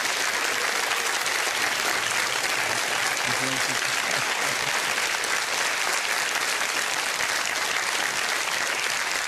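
Studio audience applauding steadily, dense even clapping.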